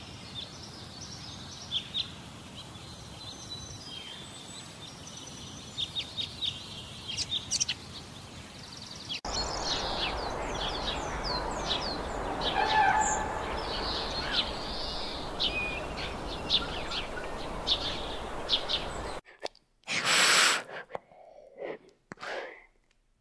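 Small birds chirping in short high calls over steady outdoor background noise. The background jumps louder about nine seconds in. Near the end a brief rush of noise is followed by a few lower calls.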